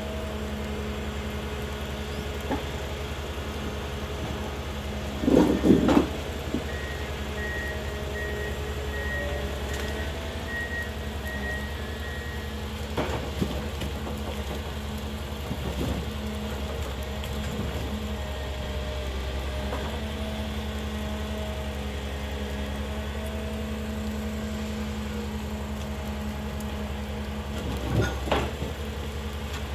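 Ponsse Elephant King forwarder running steadily while its hydraulic crane works. Heavy wooden clunks come as eucalyptus logs are dropped onto the load, loudest about five seconds in and again near the end.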